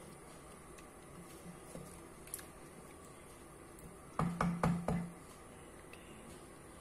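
Four quick knocks with a short low ring, about a quarter second apart, a wooden spatula tapped against the stew pot, over faint room hiss.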